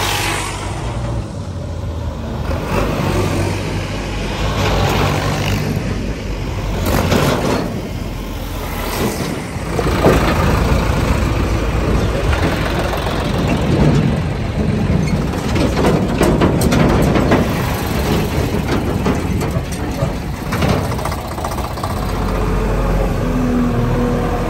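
Diesel engines running: an Eicher tractor towing a trolley goes by, then a JCB 3DX backhoe loader's engine runs close by. The sound gets louder and busier about ten seconds in.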